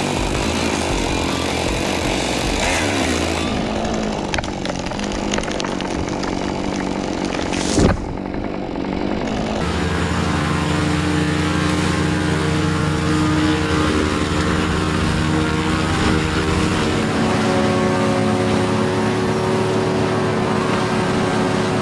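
Heavy machinery engines: a busy, saw-like motor with one sharp knock about eight seconds in, then, after a sudden change near the middle, a steady engine running with an even hum.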